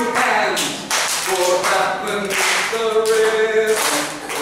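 A group singing a song unaccompanied, with a note held for about a second in the middle, while hands clap along.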